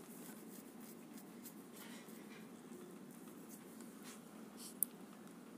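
Faint, steady sizzle of chopped vegetables frying in oil in a wok, with small crackles and a single light click about five seconds in.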